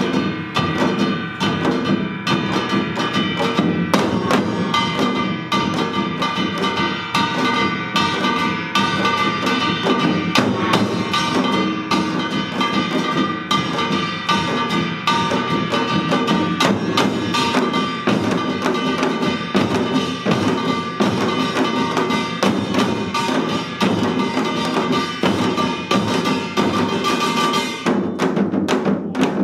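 Samul nori percussion ensemble playing a dense, fast rhythm: janggu hourglass drums and buk barrel drums struck with sticks over the ringing of gongs. The playing thins out near the end.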